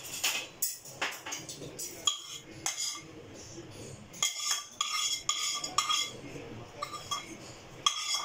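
A spoon scraping and knocking against a nonstick pan as fried cashews and rice are scraped out onto a bowl of pulao: an irregular run of short clinks and scrapes, busiest around halfway through.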